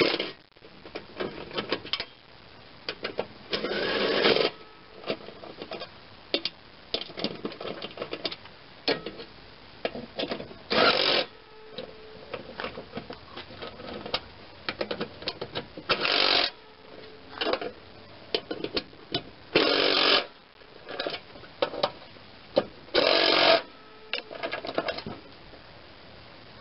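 Hand work on a lawn mower deck's blade spindle: rapid, irregular small metallic clicks throughout, broken by about five short, louder rasps.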